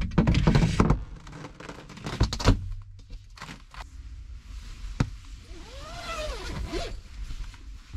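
Camping gear and bedding being shifted about inside a pop-up truck-bed camper: a burst of rustling and clatter at the start, a thump about two and a half seconds in, a sharp click about five seconds in, then a short squeak that rises and falls.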